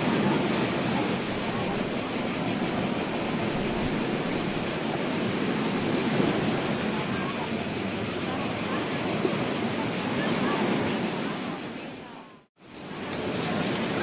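Ocean surf washing on a beach, under a steady high, rapidly pulsing buzz of insects. Near the end the sound fades out to near silence for a moment and fades back in.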